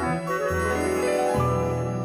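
Background score music: light, tinkling melody over bass notes that change about every half second, settling into a held chord near the end.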